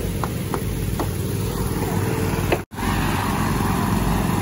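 Small engine-driven water pumps running steadily, dewatering a cofferdam. A few light knocks sound in the first seconds, the sound cuts out for an instant about two-thirds in, and water gushing from the pump outlets joins the engine noise after that.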